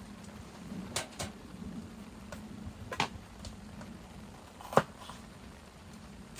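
A few sharp, irregular clicks and taps, the loudest a little under five seconds in, over a low steady hum.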